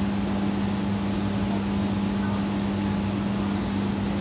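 Steady hum of aquarium pumps and filtration running, with one constant low tone under a wash of even noise.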